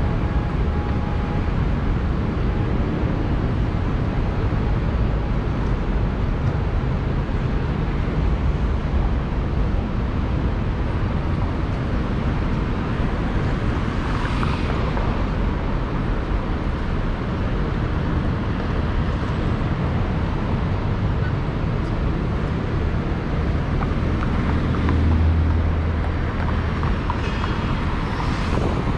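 Steady low rumbling airport ambience, with a brief sharper sound about halfway through and another near the end.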